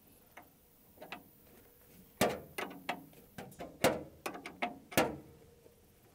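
Wrench clicking as a brass PT port fitting is unscrewed from a copper refrigerant line: about a dozen sharp clicks at uneven intervals, the loudest about two, four and five seconds in.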